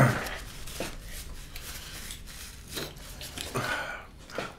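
Faint eating sounds at a table: a few soft mouth clicks and rustles, then a short sip or slurp from a glass bowl of broth near the end.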